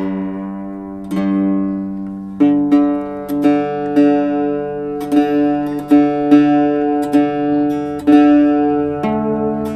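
Octave mandolin being tuned: single strings plucked again and again and left to ring while a tuning peg is turned, with another string brought in near the end.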